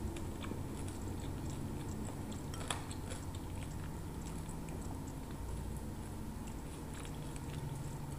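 A person chewing deep-fried battered quail eggs (kwek-kwek), with scattered light clicks as a wooden skewer pokes at the dish. One sharper click comes a little under three seconds in.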